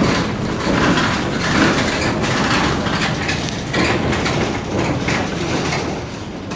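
Mercedes-Benz Citaro city bus's rear engine idling while the bus stands at a stop: an uneven rumble that eases off slightly near the end.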